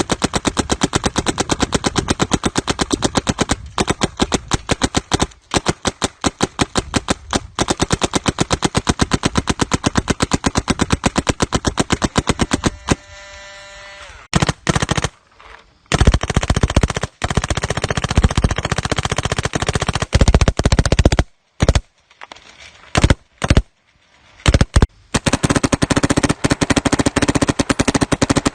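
Electronic paintball markers firing in long rapid strings of sharp pops, with short pauses between bursts and choppier bursts midway.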